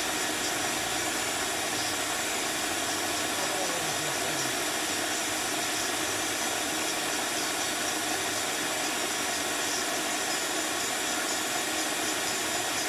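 Bee vacuum running steadily, its hose drawing bees off the exposed comb in a wall cavity: a constant rush of air and motor noise that does not change.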